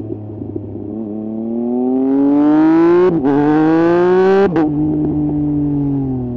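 2018 Triumph Speed Triple 1050 RS's three-cylinder engine through a Mivv exhaust with the dB killer removed, accelerating hard: the note climbs for about two seconds, breaks for an instant about three seconds in as the quickshifter snaps an upshift, and climbs again. About four and a half seconds in it drops sharply in pitch and loudness and runs on at a steady, lower note.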